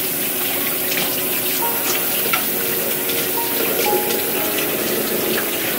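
Water from a kitchen faucet running steadily into the sink as hands work under the stream, with a few light knocks.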